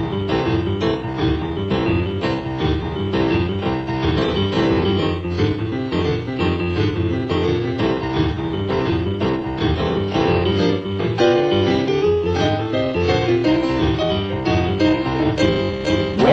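Boogie-woogie piano music, instrumental.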